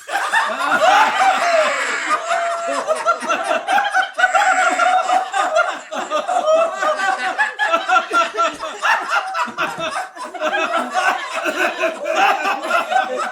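Studio-style audience laughter: a crowd of many people laughing together, a dense mix of chuckles and higher laughs that carries on without a break.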